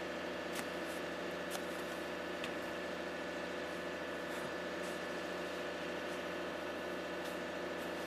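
A steady mechanical hum with several fixed tones under a haze of noise, with a few faint clicks now and then.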